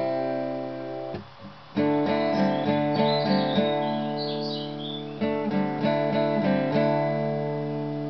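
Acoustic guitar strumming chords. It stops briefly about a second in, then strumming resumes and carries on. A bird chirps faintly high above the guitar around the middle.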